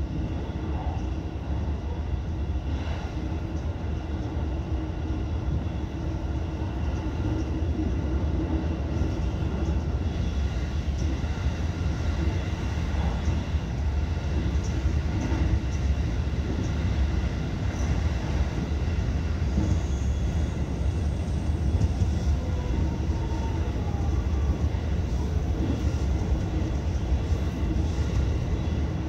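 Electric train running at speed, heard from inside the front car: a steady rumble of wheels on rail with a motor hum and a few faint clicks over the rails.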